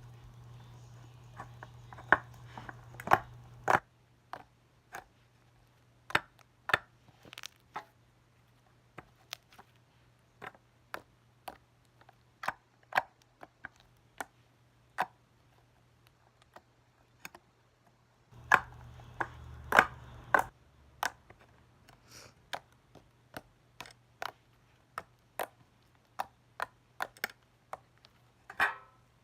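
Slime being squeezed and poked by hand, giving sharp irregular clicks and pops, a few every second. A low steady hum sits underneath, louder at the start and again for a couple of seconds about two-thirds of the way through.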